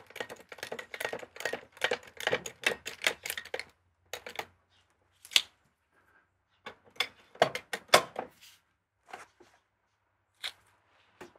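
Rapid run of small clicks and knocks for about four seconds, then scattered sharper single knocks, from hand work with wooden blocking and tools under a boat hull.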